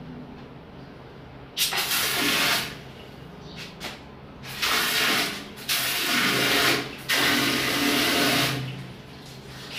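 Handheld toilet bidet sprayer (health faucet) squeezed in four bursts of hissing spray into a toilet bowl, each about a second long, the last the longest. The newly fitted hand shower is being tested.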